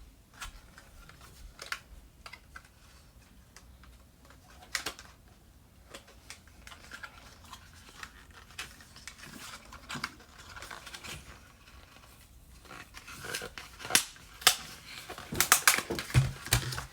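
Scattered clicks and taps of hands opening a Ryzen 7 7700X CPU box and its plastic packaging, sparse at first and busier, with louder clicks, in the last few seconds.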